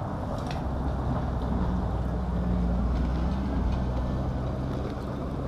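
Steady low engine hum from a motor vehicle, swelling slightly in the middle.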